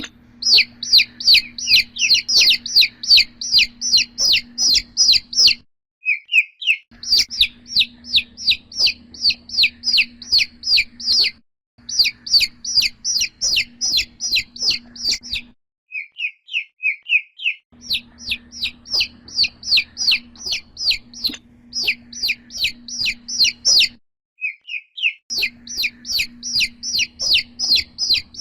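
Domestic chick (baby chicken) peeping loudly and insistently, high-pitched peeps about three a second in runs of several seconds. Short breaks between the runs hold a softer, lower little twitter.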